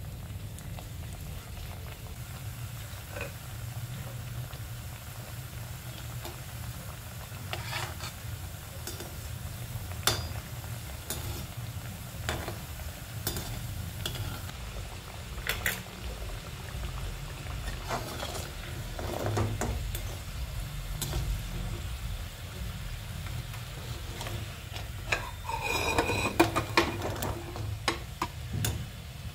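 Pieces of food frying in hot oil in an aluminium kadai with a quiet sizzle over a steady low hum, while a metal slotted spoon clinks and scrapes against the pan now and then, most busily near the end.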